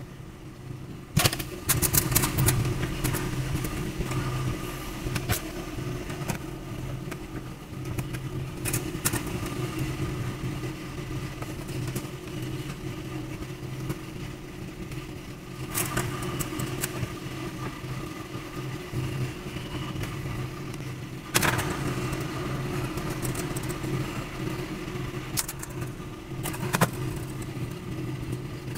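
Steady low mechanical hum, with scattered sharp clicks and clatters of pliers, wires and a driver being handled against a sheet-metal light fixture housing. The clicks come in a cluster about two seconds in and again around twenty-one seconds in.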